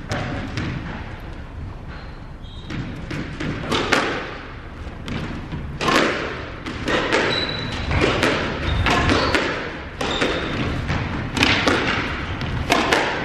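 Squash rally: a string of sharp hits as the ball is struck by rackets and smacks the walls, echoing in the court, with a few brief sneaker squeaks on the wooden floor.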